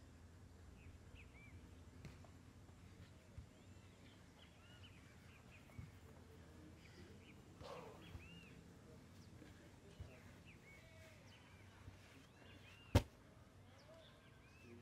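Small birds chirping in the background, with a few faint knocks. Near the end comes a single sharp thump, typical of a heavy training ball or sandbag hitting the turf.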